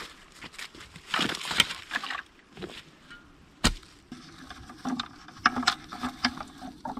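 Footsteps on dry grass and fallen leaves, then a single sharp knock a little past halfway, followed by scattered light clicks and rustling from handling a plastic bucket of cuttings.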